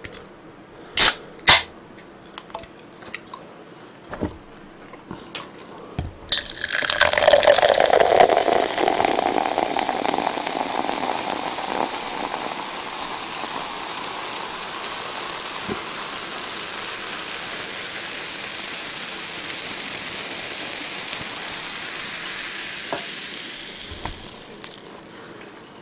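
Cola poured into a cup held up close to the microphone: a loud rush of pouring about six seconds in, then a steady hiss of carbonation fizzing that fades out near the end. Two sharp clicks come about a second in.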